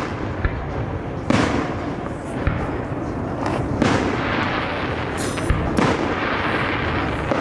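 Aerial fireworks shells bursting, about four sharp bangs spaced a second or more apart.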